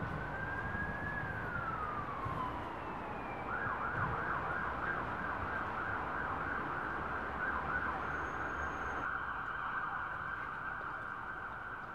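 Emergency vehicle siren: one slow wail rising and falling, then switching about three and a half seconds in to a fast warbling yelp that carries on, over a low steady rumble.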